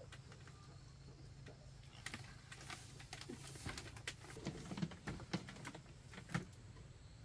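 A run of irregular light clicks and snaps, thickest in the middle seconds, over a faint low hum.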